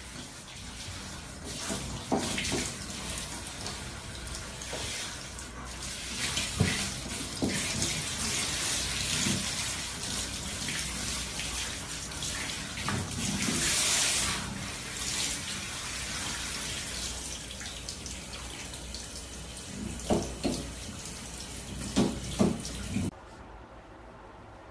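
Handheld shower head spraying water onto a dog in a small shower stall, a steady hiss of water with a few brief louder sounds near the end. The spray cuts off suddenly near the end.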